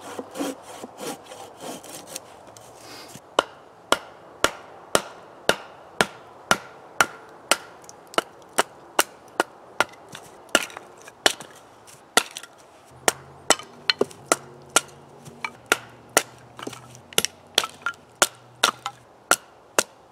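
Wood being worked by hand: a few seconds of scraping strokes, then a steady run of sharp knocks on wood about twice a second.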